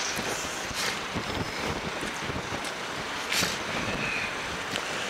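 Steady rush of wind on the microphone over washing harbour water, with two brief louder gusts.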